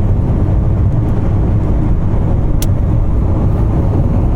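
Steady low rumble of a car's engine and tyres heard from inside the cabin while driving, with a single short click about two and a half seconds in.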